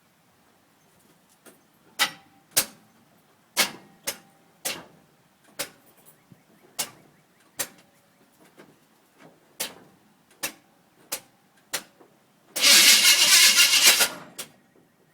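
The starter solenoid of a 1971 Chevrolet Chevelle's 350 small-block clicks about a dozen times at uneven intervals as the key is tried, but the engine does not crank. This fits an engine that won't turn over and is stuck. Near the end comes one loud, rough burst of about a second and a half.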